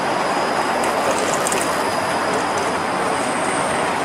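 Flexity Outlook streetcar rolling away along its track: a steady rushing rolling noise with a thin, steady high tone over it.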